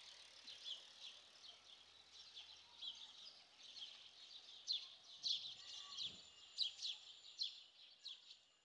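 Faint outdoor ambience of small birds chirping: many short, sharp high chirps, thickening in the second half, over a steady high hiss.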